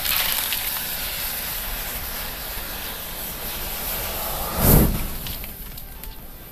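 Heaped safety matches burning fast in a tall flame with a steady rushing noise; about three-quarters of the way through a second heap flares up in a louder whoosh, then the fire dies down with a few small crackles.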